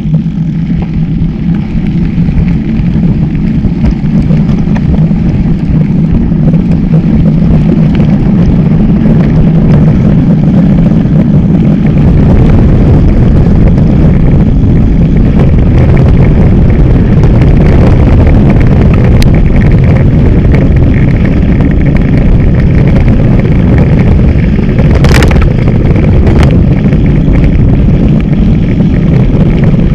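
Wind buffeting the microphone of a mountain bike's action camera, mixed with the rumble of knobby tyres rolling over a gravel track; steady and loud throughout, a little louder from about halfway on. A couple of sharp knocks from the bike near the end.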